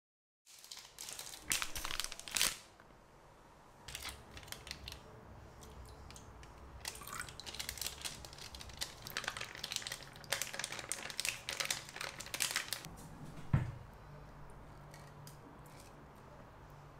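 Hands washing rice in a rice cooker's inner pot: bursts of grainy, crinkly swishing as the grains are rubbed in the water, with one sharp knock about three-quarters of the way through.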